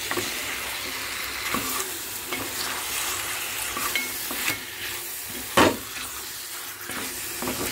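Mutton pieces frying in masala, sizzling in a hot metal pot while being stirred with a spatula, with scraping clicks against the pot and one sharp knock about five and a half seconds in.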